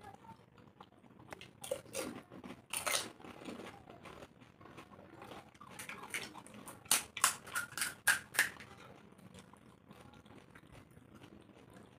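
Crisp pani puri shells crunching as they are cracked open and eaten: a few crackly crunches about two seconds in, then a louder quick run of sharp crunches around seven to eight seconds in.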